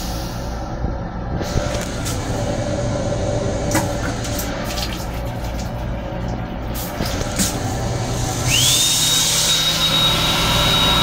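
Lavatory sink faucet running in a moving M7 railcar, over the car's steady running rumble, with a few light clicks. About eight seconds in, a small motor starts with a quickly rising whine, holds a high steady tone with a rush of air, and begins winding down at the very end.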